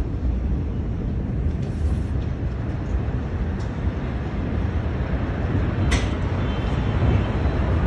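Steady low rumbling noise with no distinct events, with a couple of faint clicks about six seconds in.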